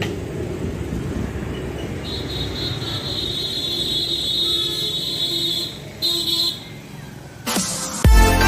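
Steady outdoor rumble like road traffic, with a high steady tone held for a few seconds from about two seconds in, breaking off and returning briefly before stopping. Electronic music with a beat starts just before the end.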